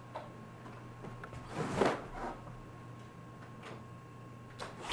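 Front door being unlatched and pulled open: a short rattling scrape about two seconds in, then a lighter knock near the end.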